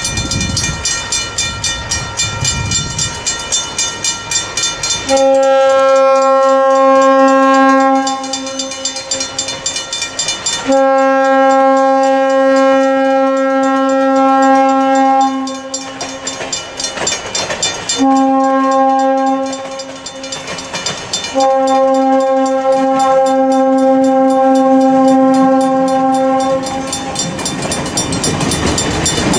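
Wilmington & Western No. 58's steam whistle sounding the grade-crossing signal, long, long, short, long, each blast one steady note. A crossing bell rings rapidly between and around the blasts.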